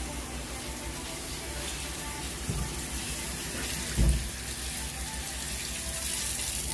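Kitchen tap running into a stainless-steel sink while a bunch of moringa leaves is rinsed under the stream, a steady splashing. Two dull thumps come about two and a half and four seconds in, the second the louder.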